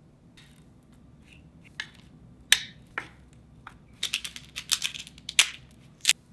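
Irregular sharp clicks and light knocks of kitchen work, sparse at first, then a quick cluster of taps near the end.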